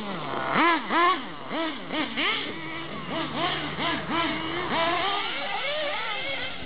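Radio-controlled off-road model cars revving up and down in quick succession, several at different pitches at once, as they are throttled through the corners.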